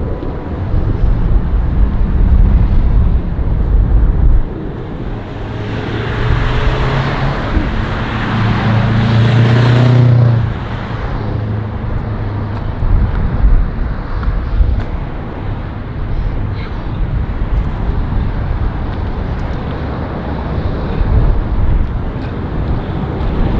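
Road traffic going by, with one vehicle passing close and loud from about six to ten seconds in, under a constant low rumble of wind on the microphone.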